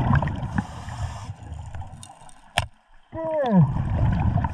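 Scuba diver's exhaled bubbles from the regulator rumbling and gurgling underwater. They stop briefly about two seconds in, with a single sharp click in the gap, then a short falling tone and the bubbling starts again.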